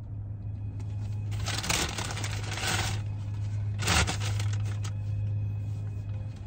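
Paper McDonald's takeaway bag rustling and crinkling as a hand rummages in it and pulls out a fries carton, with a longer stretch of crinkling early on and the loudest crackle about four seconds in. A steady low hum runs underneath.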